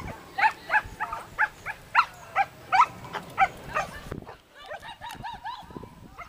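Dog barking rapidly and excitedly, about three sharp barks a second. About four seconds in, the sound cuts to quieter, repeated yips.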